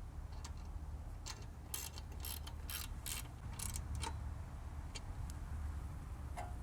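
Socket ratchet with a 14 mm socket tightening a lock nut on a light-bar mounting bolt, its pawl clicking a dozen or so times at an uneven pace.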